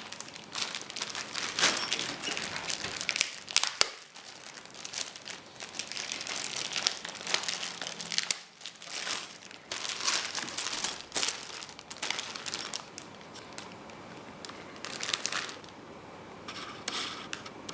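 Packaging crinkling and rustling in fits and starts, with sharp crackles, as the accessory bundle of manuals, remotes and cables is handled and unwrapped.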